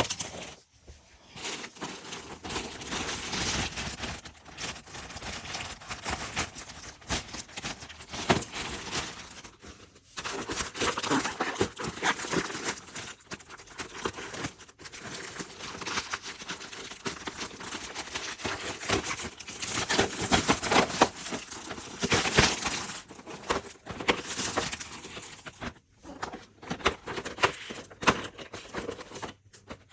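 Packaging being handled and opened: an uneven crinkling rustle in bouts, with many sharp clicks and knocks, pausing briefly a few times.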